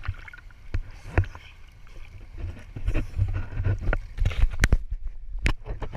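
Seawater sloshing and splashing against a waterproofed GoPro held at the sea surface, with irregular knocks and low buffeting on the microphone. About five seconds in the sound turns briefly dull, as when the camera dips under the water.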